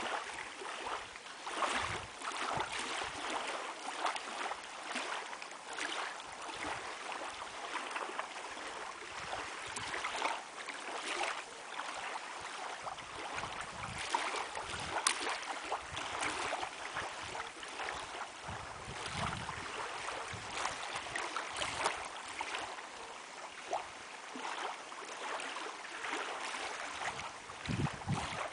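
Lake water lapping and splashing in small irregular waves, with a few low rumbles of wind on the microphone.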